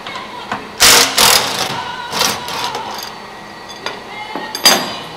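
Power ratchet on a long extension spinning a fuel-tank mounting bolt in two short, loud bursts about a second in and a little after two seconds, with a sharp metallic knock near the end.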